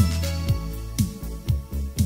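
Disco-style Vietnamese medley music played from a cassette on a 1976 Victor KD-01 stereo deck: an instrumental stretch with a drum beat about twice a second over a steady bass line, and no singing.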